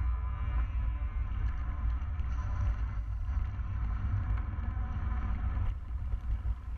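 Steady low wind rumble buffeting the microphone on a moving mountain bike, with rolling noise from the bike on the dirt trail.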